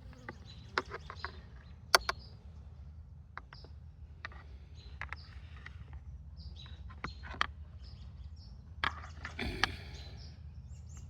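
Irregular small clicks and light knocks, a few sharper than the rest, from plastic beehive parts being handled as the bottom board is checked for bees, over a steady low background rumble.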